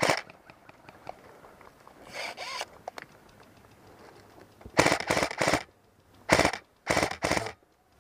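Airsoft guns firing short rapid bursts of shots, each a quick run of sharp clicks. A faint burst comes about two seconds in, then three loud ones in the second half.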